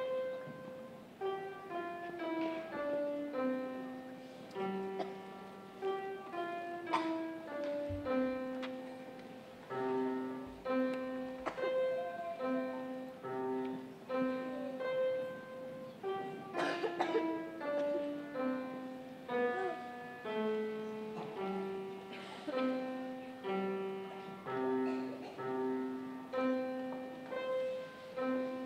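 Upright piano played solo: a simple melody of struck notes over a repeating lower accompaniment, each note ringing and fading, in an even pulse.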